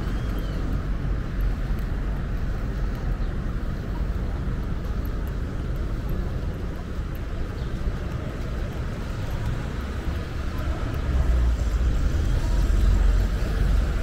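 City street traffic: a steady low rumble of passing cars and other vehicles, growing louder about eleven seconds in as traffic comes closer.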